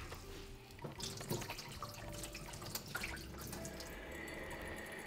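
Jasmine rice being rinsed by hand in a bowl of water at a kitchen sink: faint swishing and dripping water, with scattered small splashes.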